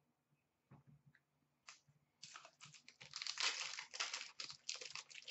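A hockey card pack wrapper being torn open and crinkled by hand, starting about two seconds in as a run of dense crackling.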